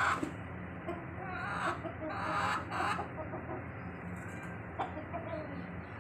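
Domestic chickens clucking in a few short bursts, the loudest at the start and around two and a half seconds in, over a steady low hum.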